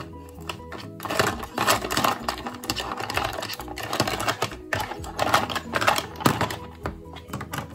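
Toy food pieces clattering and knocking together in a toy cooking pot as they are stirred, a quick, irregular run of light clicks.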